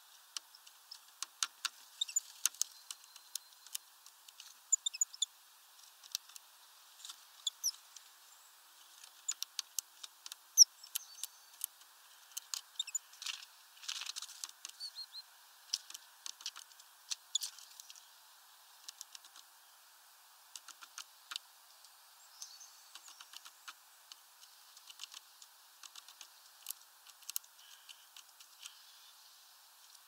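Irregular light taps and clicks at a plastic bird-feeder tray, many in quick runs, the sharpest about ten seconds in, with a few brief high chirps mixed in. The sound is thin, with no low end.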